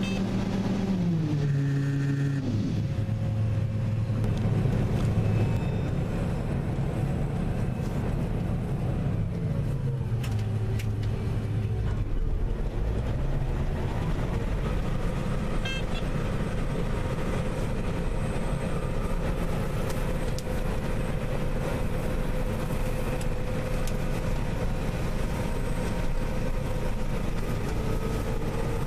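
Combine harvester running steadily while harvesting soybeans. Its tone steps down in pitch about two seconds in, then glides down and back up again around the middle.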